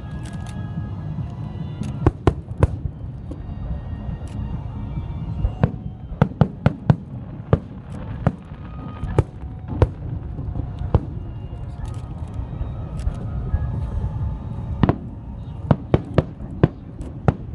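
Fireworks going off: irregular sharp bangs and cracks, several in quick clusters, over a steady low rumble.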